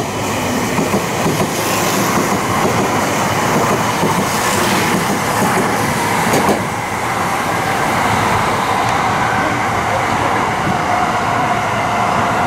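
Meitetsu 1700-series/2330-series electric train pulling out of the platform and running past: steady wheel-on-rail and running noise with a faint whine.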